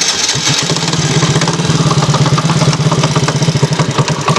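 Yamaha T115 Crypton's single-cylinder four-stroke engine idling, with a dry, light knocking tap running through its even beat. The knock is the piston slapping in its cylinder, which the owner traced to a worn piston kit and a poorly lubricated cylinder head.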